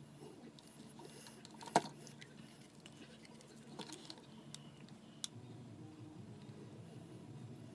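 A few sharp clicks and light knocks as a hot glue gun is worked along the seams of a small mold box, the loudest about two seconds in, over a faint steady low hum.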